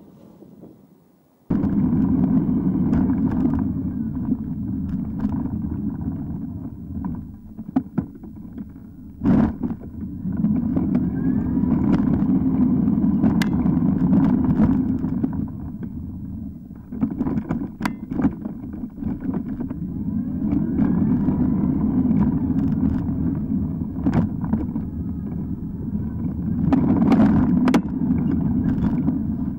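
Electric ride-on car driving on a road, its stock motor run on 48 volts, heard from a camera mounted on its bodywork: a steady rumble of tyres and wind that swells and dips as it drives, with a few sharp knocks. The rumble comes in suddenly about a second and a half in, after a quieter stretch.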